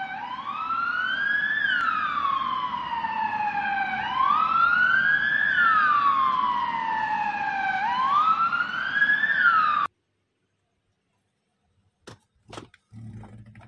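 Ambulance siren sounding a wail: three slow cycles, each rising for about a second and a half and then falling for about two and a half. It cuts off suddenly about ten seconds in.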